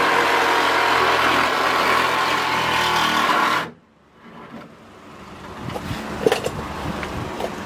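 Milwaukee Fuel compact cordless reciprocating saw cutting through the double-skinned sheet-steel rear quarter panel, a loud steady buzz that stops suddenly about three and a half seconds in. Faint clicks and handling noises follow.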